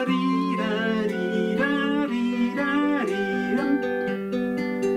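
Closing music: strummed acoustic guitar with a singing voice carrying a wavering melody over sustained notes.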